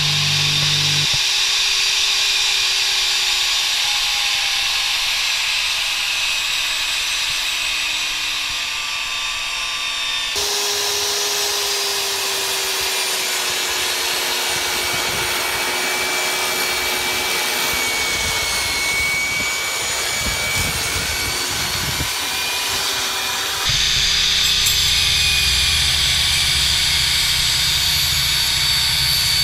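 SkilSaw SPT70WT-22 10-inch worm-drive table saw running with a steady motor and blade whine, heard in several spliced clips that change abruptly about ten seconds in and again near the end. In the last clip there is more low rumble as the blade rips a pine 2x4.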